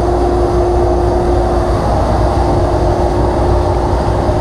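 Dust collector running loudly and steadily with a constant hum, pulling air and sawdust out of a table saw cabinet through the ducting.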